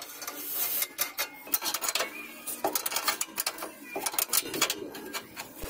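Wrench turning a stabilizer link nut: a run of quick, irregular metal clicks and scrapes.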